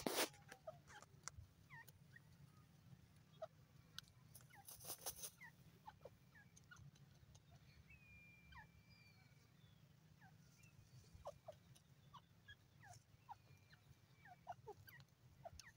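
Faint, scattered short bird chirps and a few thin whistles, with brief rustling noises at the start and about five seconds in.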